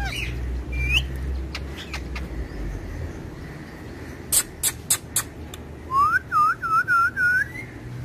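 Rose-ringed parakeets calling: several short, sharp shrieks about four to five seconds in, then a run of five looping whistled notes.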